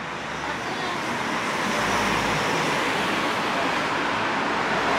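Street traffic noise: a steady rush of passing vehicles that grows louder over the first two seconds, then holds.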